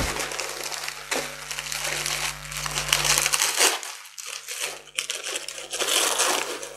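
Brown kraft wrapping paper crumpling and rustling as hands pull it from around a wrapped orchid in a cardboard box packed with shredded paper, with a short lull a little past halfway.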